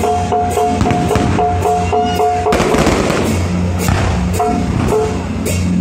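Music with a steady beat and a repeated two-note figure, broken about halfway through by a dense burst of crackling fireworks lasting nearly two seconds before the beat carries on.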